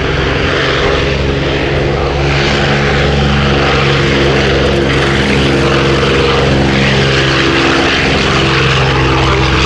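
Propeller aircraft engines running in a steady, even drone of engine tones, growing a little louder about two seconds in.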